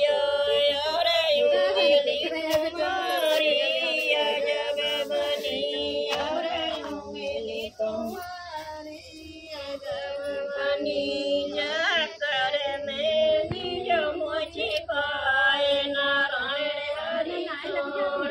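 A group of women singing a traditional wedding folk song together, unaccompanied, in long drawn-out lines. The singing drops away briefly about eight seconds in, then picks up again.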